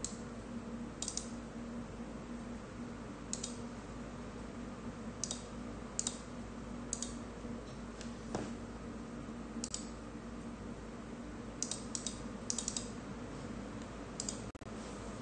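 Scattered computer keyboard clicks, single keys and short runs of a few presses at irregular intervals, over a steady low hum.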